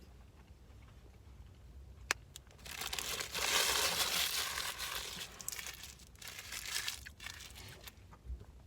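McDonald's paper food packaging being crinkled and crumpled, loudest in a long rustle between about three and five seconds in, with smaller crinkles after it and a sharp click just before.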